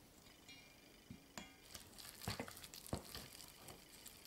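Plastic spatula stirring thickening flour dough in a stainless steel bowl: faint scraping with scattered soft clicks against the bowl.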